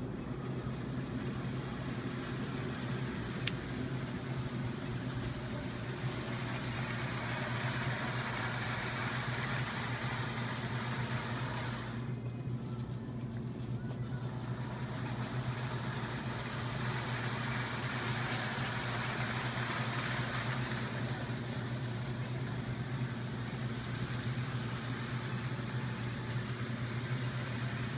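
O scale model train running on its track, its wheels and motor rumbling, growing louder and fading twice as it passes, over a steady low hum.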